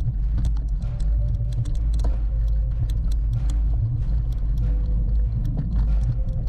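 Mountain bike ridden hard over a rough dirt trail: a steady low rumble of wind and tyres on the mic, with frequent sharp clicks and rattles from the bike jolting over bumps.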